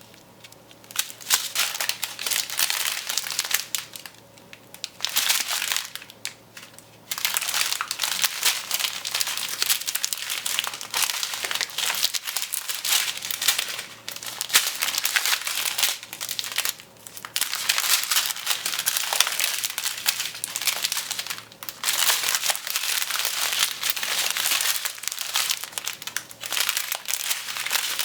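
Small plastic bags of diamond-painting drills crinkling as they are handled, in stretches of busy crackling broken by short pauses.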